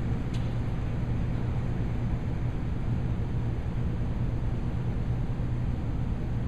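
Steady low hum and rumble of background noise with no change in level, and one faint tick just after the start.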